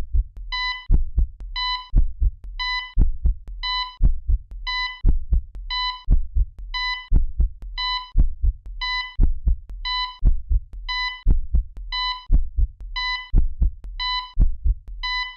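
Heartbeat sound effect: a low double thump about twice a second, each beat with a short electronic beep, repeating evenly.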